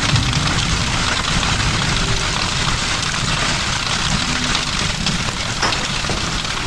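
Steady, dense storm noise of heavy rain, with a low rumble underneath.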